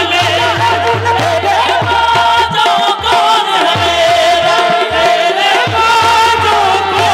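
Live qawwali music: held harmonium-like tones and wavering sung notes over steady hand-drum strokes.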